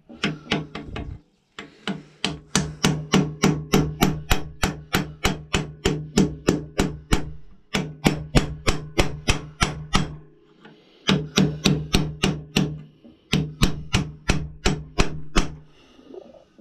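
Hand file cutting a dovetail slot in a muzzleloader barrel: quick, even strokes at about four a second, in several runs broken by short pauses.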